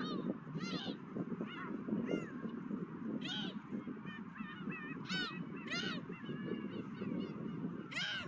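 A flock of gulls calling, many short arched cries overlapping from several birds, the loudest near the end, over a steady low rumble of wind.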